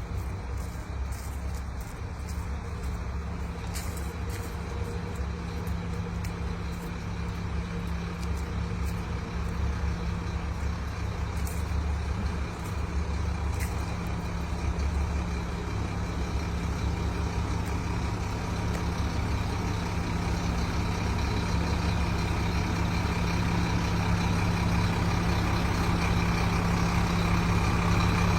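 Heavy diesel engine running steadily with a low drone, growing louder toward the end.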